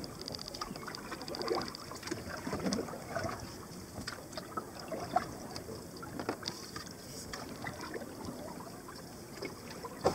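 Canoe paddling: a wooden paddle dipping and pulling through the water, with irregular small splashes and drips and an occasional sharp knock.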